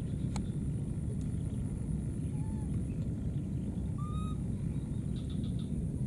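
Baby monkeys giving short arched coo calls, one about two and a half seconds in and a higher one about four seconds in, over a steady low rumble.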